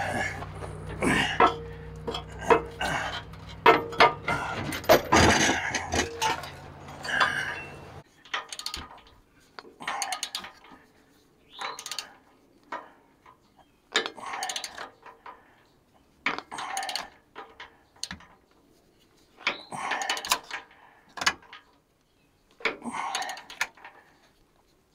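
Ratchet wrench being worked in short strokes on a bolt, each stroke a brief rasp of clicks, with metal clinks between them. A steady low hum runs underneath at first and cuts off about a third of the way through.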